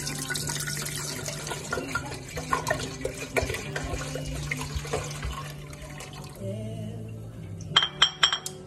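Red wine poured in a steady stream from glass bottles into a stainless-steel pot, splashing and glugging into the wine already in it. Near the end come a few sharp knocks.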